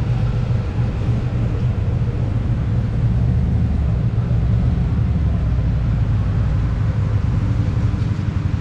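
Harley-Davidson motorcycle's V-twin engine running steadily, a loud low sound without a break.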